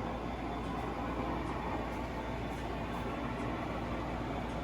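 Lionel O gauge model train running on its track: a steady rolling rumble of wheels and motor.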